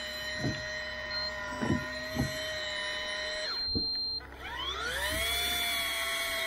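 Electric deep-sea fishing reel's motor whining steadily as it winds in line. About three and a half seconds in it cuts out briefly, then spins back up with a rising whine to a steady pitch as the reel's lever is worked. A few light knocks in the first few seconds.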